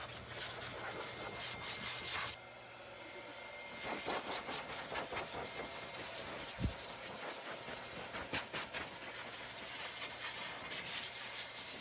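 Strong wind blowing and buffeting the microphone as a gusty rushing noise, with one short low thump about six and a half seconds in.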